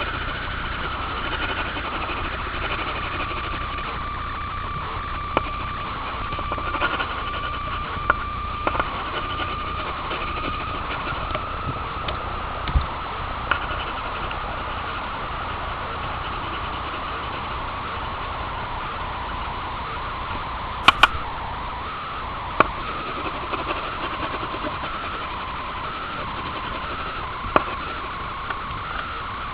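Steady machine hum with a wavering high whine, broken by a few short clicks.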